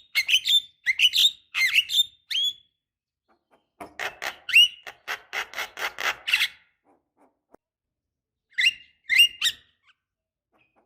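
Javan myna calling: a quick run of short, sharp whistled calls, then after a pause a fast chattering series of harsher notes, and two more short calls near the end.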